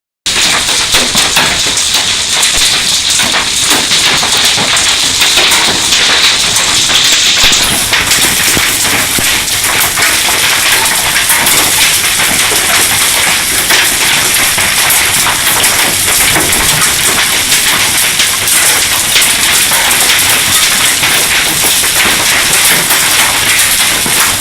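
Hailstorm: hailstones and rain pelting surfaces in a loud, dense, unbroken clatter of tiny impacts, growing brighter and sharper about a third of the way in.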